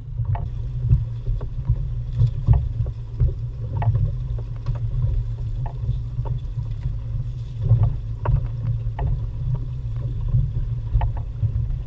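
Wind buffeting the microphone on a small open boat on choppy water, a steady low rumble with scattered light knocks and water slaps against the hull.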